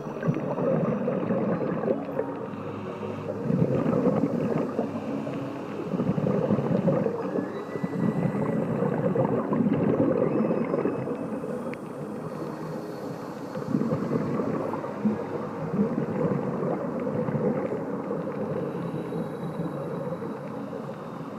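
Scuba diver's regulator breathing and exhaled bubbles, heard underwater: a rushing, gurgling noise that swells every few seconds with each breath.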